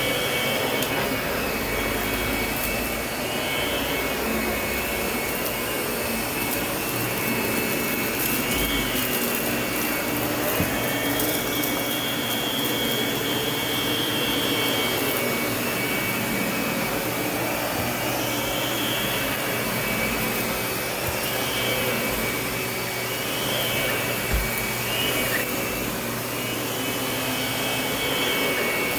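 Lindhaus vacuum cleaner running steadily, its whine rising and falling in pitch every couple of seconds.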